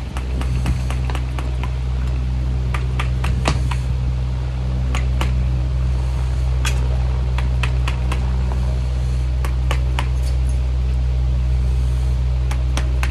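A steady low machine hum, with scattered light metallic taps of a farrier's hammer working on a shod hoof on a hoof stand; the taps come a few at a time and bunch together near the end.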